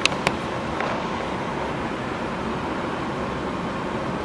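Car heater blower running on high, a steady rush of air inside the car cabin, with two brief clicks right at the start.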